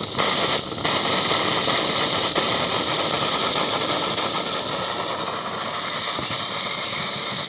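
Vaporising pressure methanol burner of a Saito B3 model steam boiler hissing steadily as the vapour burns, just lit and not yet burning fully. The hiss drops out briefly twice in the first second.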